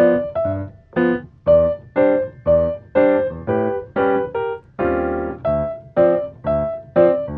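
Lofi background music: soft piano chords struck about twice a second, each fading before the next.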